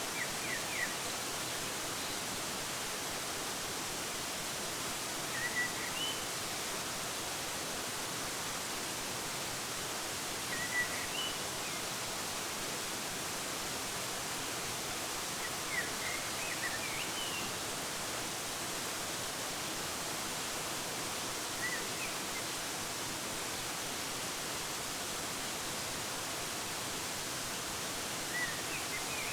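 Steady rushing of a waterfall, with short high bird chirps breaking in about every five seconds.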